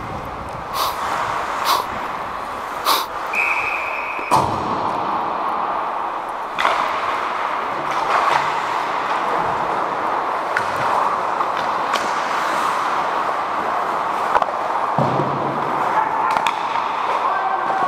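Ice hockey play heard from a skating referee: a steady scrape and hiss of skate blades on ice, broken every second or two by sharp clacks of sticks, puck and boards. A brief high tone sounds about three seconds in.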